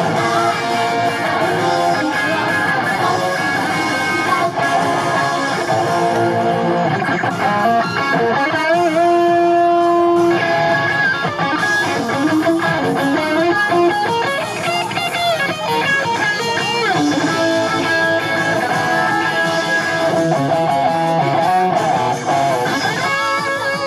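Live electric guitar playing sustained melodic lead lines in a pop song's instrumental section, with no singing.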